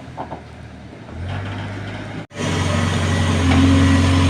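JCB excavator's diesel engine running: faint at first, louder from about a second in, cut off for an instant about two seconds in, then running louder and steadier, with a higher steady hum joining near the end.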